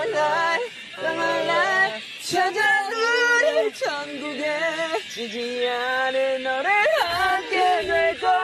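Several young men singing together unaccompanied in a car, holding high notes with pitch slides between phrases and a sharp upward slide near the end.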